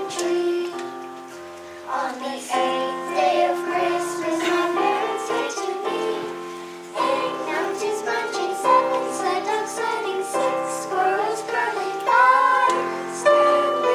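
Children singing a song together over instrumental backing music.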